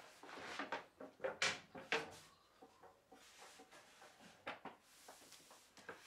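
Wooden hive roof being handled and fitted onto the hive body: a series of light knocks and scrapes of wood on wood, the two loudest knocks about one and a half and two seconds in, with a few lighter ones later.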